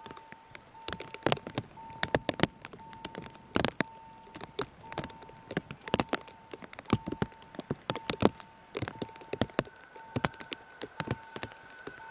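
Rain, with large drops tapping irregularly and sharply close to the microphone over a faint hiss. A faint beeping tone repeats in short pulses, and a second, higher steady tone joins near the end.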